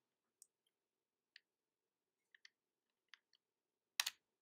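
Near silence broken by faint, scattered clicks at a computer, with a louder double click near the end.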